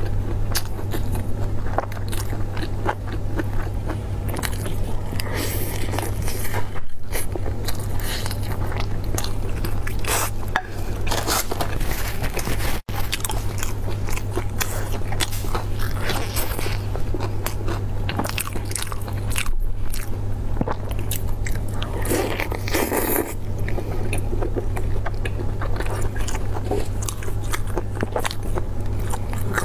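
Close biting and chewing of Xinjiang baked buns (kaobaozi), the baked pastry crust crunching and crackling between wetter chewing sounds, over a steady low hum.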